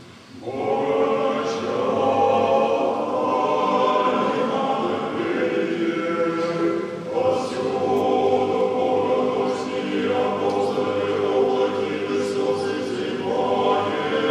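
Orthodox monastic choir singing liturgical chant unaccompanied, in long held chords. The singing starts about half a second in, after a brief lull.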